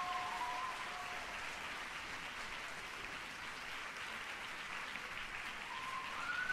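Audience applauding steadily in a concert hall after an orchestral piece.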